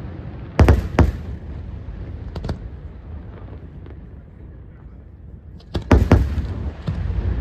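Aerial firework shells bursting. Two sharp booms come just under a second in, two fainter cracks follow at about two and a half seconds, and another cluster of booms comes about six seconds in, with a low rumble between them.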